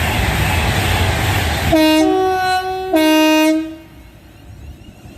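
Train going by with a loud, even rushing noise that stops abruptly, then a two-tone train horn sounds low, high, low for under two seconds.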